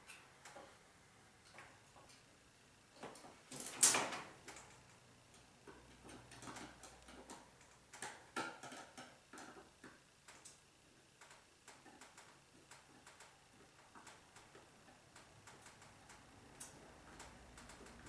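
Faint clicks and knocks of a screwdriver and a metal cable connector as the connector's clamp screw is tightened down onto a 14/2 Loomex cable, with a sharper clack about four seconds in.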